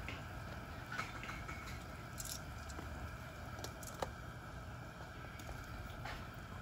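Metal tongs clicking against king crab legs and the rim of a steel stockpot as the crab is turned: a few sharp clicks, the loudest about four seconds in, over a steady low rumble.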